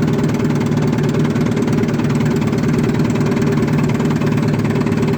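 1954 Evinrude Super Fastwin 15 hp two-cylinder two-stroke outboard idling steadily, chugging along. It is idling smoothly, its idling problem having been cured by fixing the ground wires.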